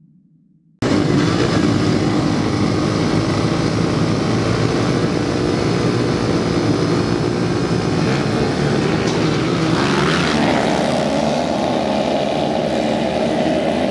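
A pack of off-road dirt bike engines racing together, cutting in suddenly about a second in. A higher, steady engine note joins about ten seconds in as the bikes come close.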